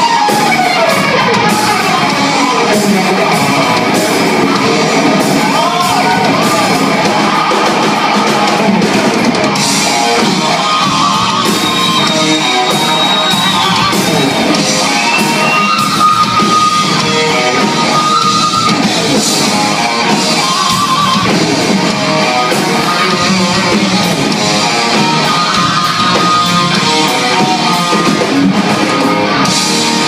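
A live hard rock band playing loud: distorted electric guitar, bass guitar and a drum kit, with the guitar sliding between notes at times.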